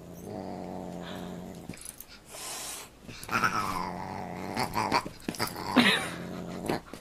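A dog and a Siamese cat play-fighting, with low growling that runs in long stretches and a couple of sharper, louder cries that glide down in pitch, about three seconds in and again near the end.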